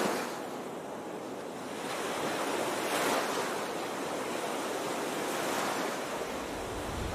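Surf washing in: a rushing noise that swells twice, about two and five seconds in, with a low rumble joining near the end.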